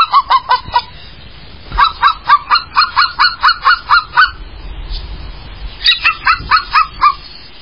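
A bird honking in quick runs of short calls that drop in pitch, about five a second, in three bouts.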